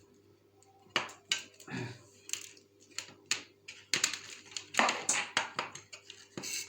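Plastic clicks, taps and rattles as the housing of a small waterfall aquarium filter is opened and handled, starting about a second in, with a short scraping slide a little past the middle.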